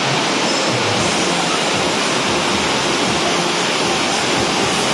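Heavy rain pouring steadily: a loud, even hiss of water.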